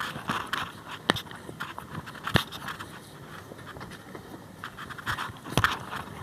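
Rustling and scraping handling noises, with several sharp clicks: one about a second in, one about two and a half seconds in, and one near the end.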